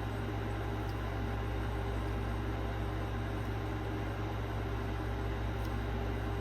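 Steady low hum with an even hiss over it, unchanging throughout, with no distinct knocks or clicks.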